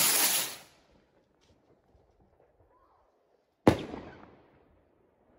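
A firework rocket launching with a hissing whoosh of about a second, then bursting overhead a few seconds later with one sharp bang, the loudest sound, whose tail dies away over about a second.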